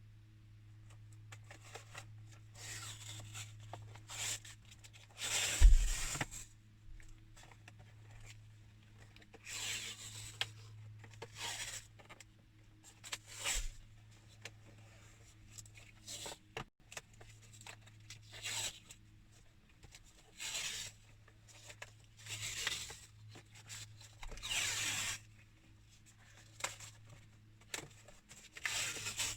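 Adhesive tape being pulled off the roll and torn in repeated short rips, about a dozen of them, with a sharp knock about six seconds in. A steady low hum runs underneath.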